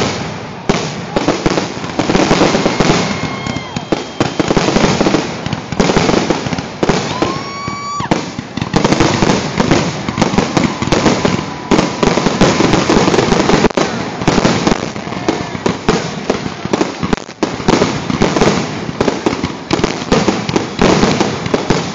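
Fireworks display going off in a dense, continuous barrage of bangs and crackles, with a few short whistles rising among them.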